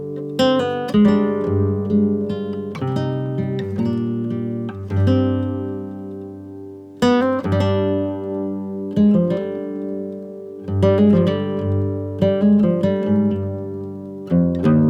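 Background music: acoustic guitar playing plucked notes and strummed chords that ring and fade.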